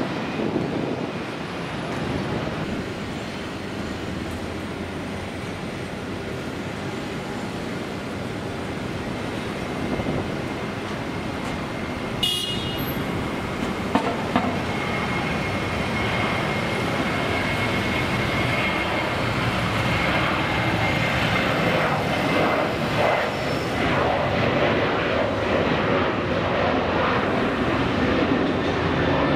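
Jet airliner engines: an Airbus A320-family jet climbing away, then a Qantas Boeing 737-800 on the runway whose engine noise, a steady rush with a faint high whine, grows gradually louder as it spools up for the takeoff roll. A single sharp click about twelve seconds in.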